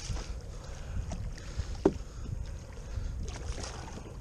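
Wind rumbling on the microphone and water sloshing around a plastic fishing kayak, while a hooked striped bass splashes at the surface beside it as it is reeled in. A single sharp knock comes about two seconds in.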